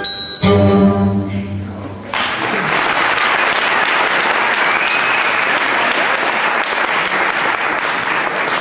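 A last sustained low note of music, then an audience breaks into steady applause about two seconds in.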